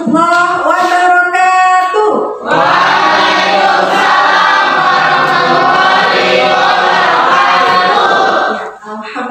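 Singing voices: a melodic vocal line, then from about two and a half seconds in a dense chorus of many voices together, fading out near the end.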